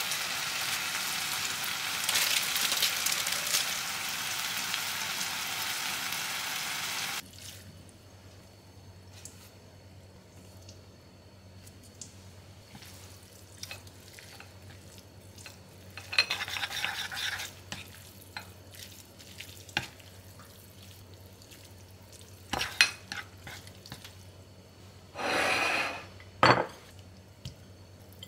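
A pot of water at a rolling boil with a block of instant noodles cooking in it, a loud steady bubbling hiss that cuts off suddenly about seven seconds in. Then quieter kitchen sounds: chopsticks stirring noodles and sauce in a bowl, a few clinks, and a short scraping clatter of dishware near the end.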